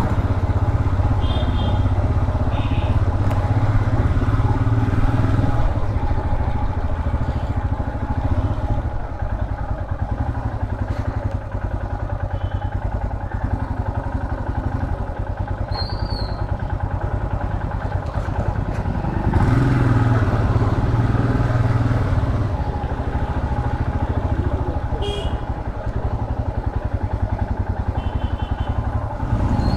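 Royal Enfield Himalayan 411's single-cylinder engine running while the bike is ridden, a steady rapid thumping under way. It gets louder about nineteen seconds in as the throttle is opened a little.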